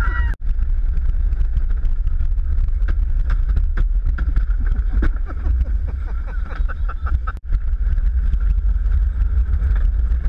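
Luge cart rolling fast down a concrete track: a steady low rumble from the wheels and from wind on the helmet-mounted microphone, with frequent small rattles and clicks. The sound cuts out briefly twice, about half a second in and about seven seconds in.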